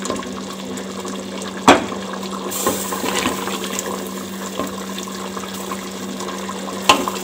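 Wooden spoon scooping thick chickpea curry in a metal pot, the gravy sloshing, with two sharp knocks of the spoon against the pot, one about two seconds in and one near the end. A steady low hum runs underneath.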